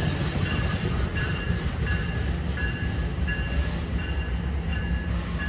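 NJ Transit double-deck commuter coaches rolling past on the rails: a steady low wheel rumble with a high squeal that pulses about twice a second.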